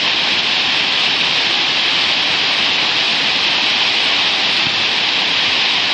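Whitewater of a flood-swollen mountain creek rushing through rapids: a steady, even roar of water.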